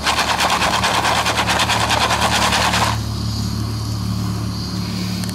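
Jiffy Pop foil pan shaken rapidly back and forth over a butane camp stove burner, the pan rattling and scraping on the burner at about ten strokes a second for some three seconds, then stopping. A steady low hum continues underneath.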